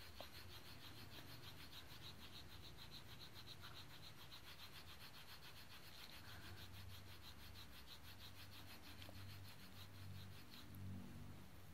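Very faint rubbing of a fingertip scribbling back and forth across the glass of a replacement Sony Xperia Z3 touchscreen, as a fast, even swishing that stops shortly before the end.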